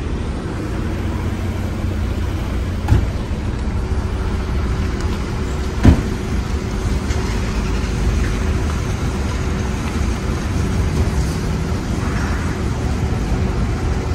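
Steady low rumble of motor vehicles running, with two short sharp knocks about three and six seconds in.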